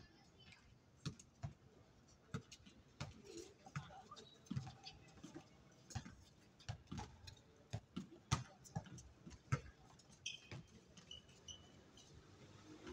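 Basketball being dribbled and bounced on an outdoor hard court, with players' footsteps: an irregular run of faint dull thumps, one or two a second, the loudest about eight seconds in.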